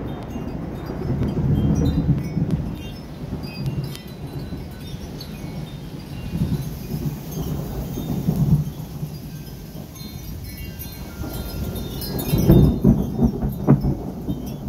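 Thunder rumbling in several swells over steady rain, the loudest about twelve seconds in, while metal tube wind chimes ring on and off.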